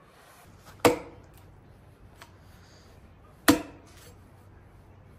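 Two sharp knocks, about two and a half seconds apart, over a quiet background.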